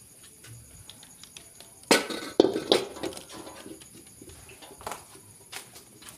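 Metal cookware being handled: a few loud clanks with a short ring about two seconds in, then lighter knocks.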